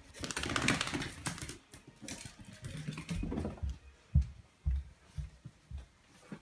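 A wet Yorkshire terrier scrambling about, her claws and paws clicking and scuffling in quick runs, followed by four dull thumps about half a second apart.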